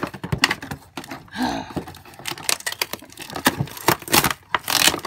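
Doll packaging being wrestled open by hand: the plastic insert and cardboard box crinkle, click and rattle in quick irregular bursts, with a longer rustle of tearing packaging near the end.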